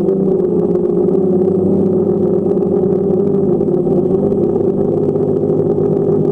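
Drone's propellers humming steadily at hover, a loud droning whine whose pitch wavers slightly.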